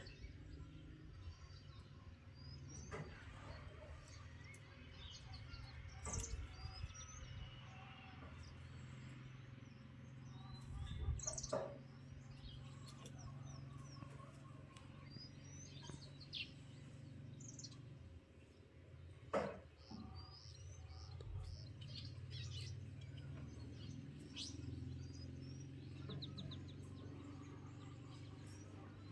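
Small birds chirping and twittering in many short, high calls over a low steady hum, with a few louder calls standing out.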